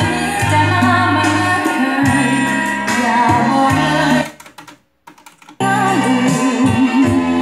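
A song with singing played back from cassette on a Pioneer CT-W511R double cassette deck. About four seconds in, the music cuts out for a little over a second as a transport button on the deck is pressed, then starts again.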